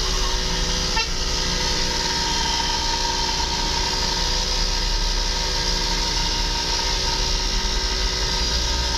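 Multi-tone air horns of the 'telolet' kind sounding as held steady tones over the drone of a running vehicle.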